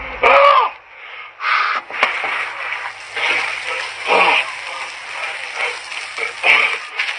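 Shower water splashing with a steady hiss over a soapy body, broken by several short bursts of voice, the first just after the start.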